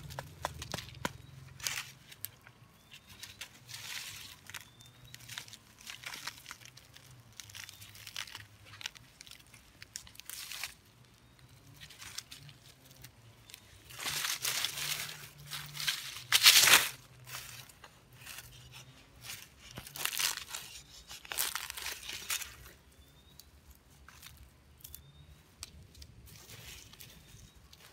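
Hands rustling and crackling through dry leaf litter and scraping soil while pulling up orange rhizomes by their roots. The rustling comes in irregular bursts, loudest about halfway through.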